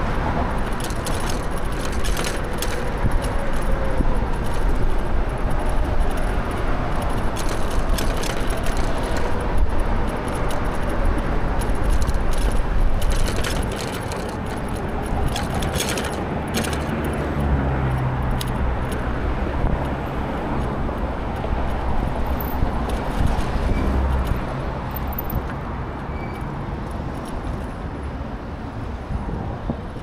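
Steady road and wind rush from an e-bike riding through city traffic, with frequent light rattling clicks. A motor vehicle's low hum comes up for a few seconds past the middle.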